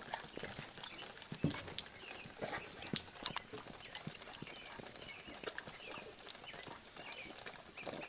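Great Dane sniffing and licking right at the microphone: a string of small wet clicks and snuffles, with a stronger thump about a second and a half in.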